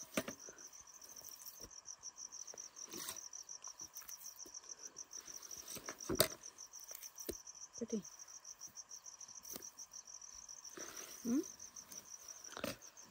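A cricket chirping in a steady, fast pulsing trill, with a few short knocks.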